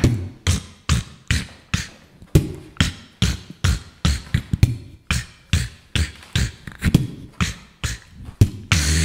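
Beatboxing into a handheld microphone: a steady beat of short kick- and snare-like mouth sounds at about three a second, with a longer, fuller sound near the end.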